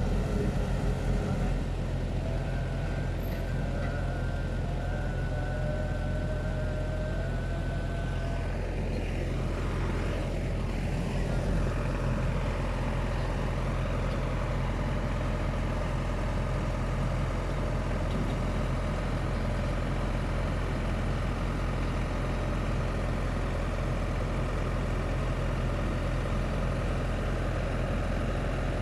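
An engine running steadily at idle, with a faint whine over it for the first several seconds.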